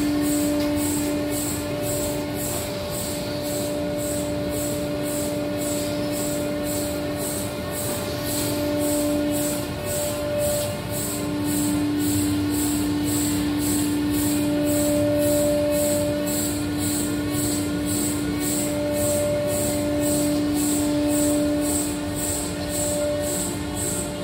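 ShopBot CNC router spindle running: a steady whine that drops away and comes back several times, over a constant hiss, with a faint high ticking about twice a second.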